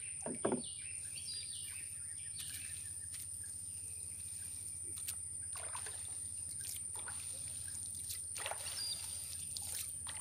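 Water trickling and dripping as a gillnet is lifted over the side of a wooden canoe, with a splash about half a second in and scattered small splashes of paddle and hands in the water later on.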